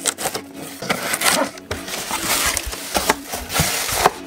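Cardboard shipping box being opened by hand: the tape is slit and the flaps pulled back, giving a run of scraping, rustling cardboard noises with sharp knocks.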